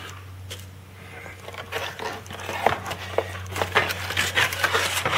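Kit packaging rustling and crinkling as it is handled, in irregular crackles that grow busier towards the end, over a steady low hum.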